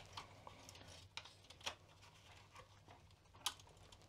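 A few faint clicks and handling sounds as the Amstrad CPC 6128's keyboard ribbon cable is worked loose from its connector on the motherboard. The clearest click comes about three and a half seconds in.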